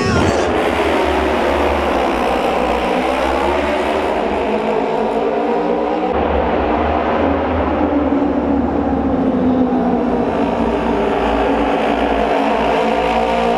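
Several Auto Race racing motorcycles running together around the oval track, their engine pitch rising and falling in waves as they lap.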